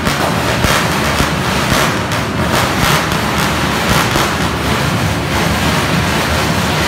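Motorcycle engine revved hard at close range, a loud, harsh, distorted noise that holds steady throughout.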